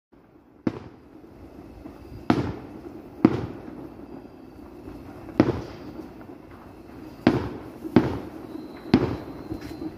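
Aerial fireworks bursting in the sky: about seven sharp bangs at irregular intervals, each followed by a short rumbling tail.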